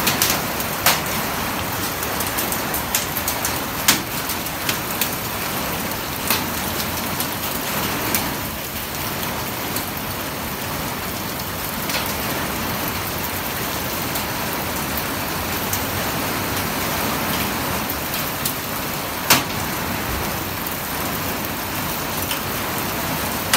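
Heavy rain falling steadily in a thunderstorm, a dense even hiss with scattered sharp taps of drops striking a nearby surface. The two sharpest taps come about four seconds in and a few seconds before the end.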